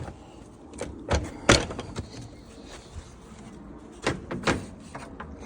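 A handful of sharp knocks and clacks, the loudest about one and a half seconds in, with a pair more near the end.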